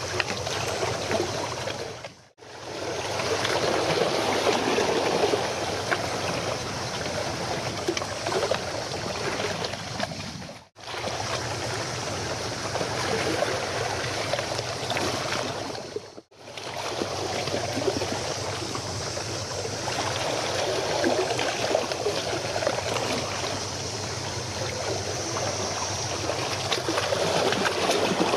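Water lapping and gurgling, with a steady low hum underneath. The sound drops out briefly three times.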